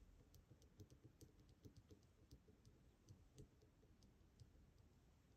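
Faint, irregular small clicks of a lock pick working the pins of an ASSA 700 pin-tumbler cylinder during single-pin picking, several a second and thinning out near the end.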